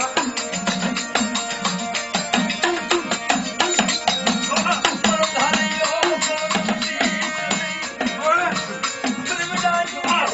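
Gujarati folk music: hand drums beating a steady rhythm over sustained melodic tones, with quick percussive clicks throughout.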